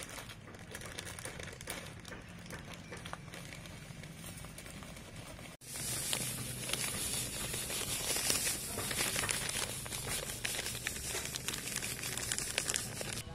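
Plastic bag of panko breadcrumbs crinkling as it is handled, then, after a short drop-out about five and a half seconds in, louder and steadier crackling as the dry crumbs pour from the bag onto a stainless steel tray.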